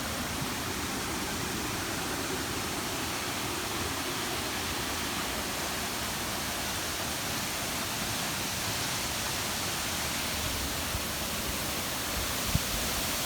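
Steady rush of falling water from Mantayupan Falls, a tall waterfall: an even, unbroken hiss with no changes.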